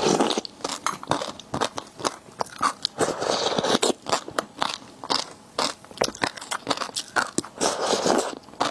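Close-miked eating: crunchy bites and chewing, with many quick clicks and crackles in irregular bunches.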